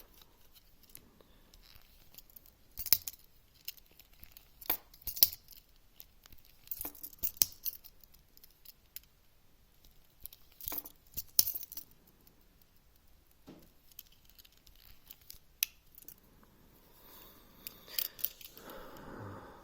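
Victorinox Swiss Army knife tools being opened and closed over and over, giving irregular sharp metallic clicks and snaps, some in quick pairs, as fresh oil is worked into the pivots.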